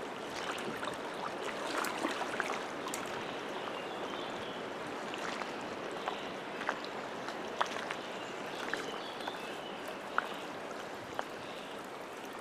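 Small waves lapping in shallow lake water, a steady watery wash with scattered little splashes and drips.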